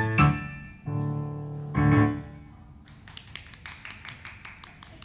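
Piano playing its last few struck chords, each left to ring and fade. A run of light, quick taps follows from about three seconds in and dies away.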